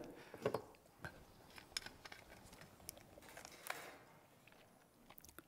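Faint handling sounds of a small glass hot sauce bottle being picked up and opened: scattered small clicks, the clearest about half a second in, and a short hiss a little before the end.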